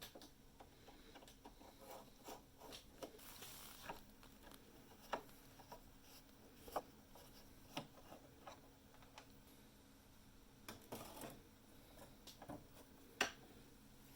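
Faint handling noises: light scratching and rubbing with scattered small clicks, the sharpest click near the end.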